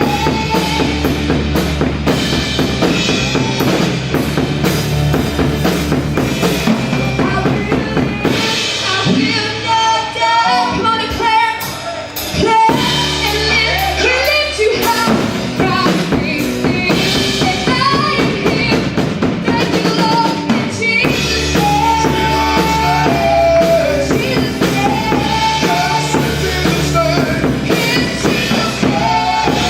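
Live gospel worship music: a drum kit with bass drum and snare, bass guitar and keyboard, with singing over it. The bass drops out for a few seconds about a third of the way in, then comes back under a sharp drum hit.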